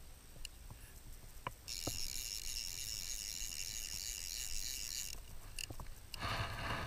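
Fly reel's click-and-pawl drag buzzing for about three and a half seconds as line runs through it while a hooked rainbow trout is being played, with a few light ticks before it. A short scuffing noise follows near the end.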